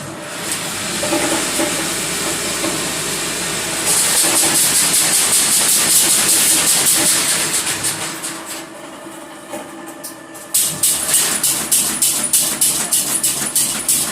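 Electric welding: a steady, loud crackling hiss that swells about 4 seconds in, eases off around 8 seconds, then returns as a rapid run of crackles.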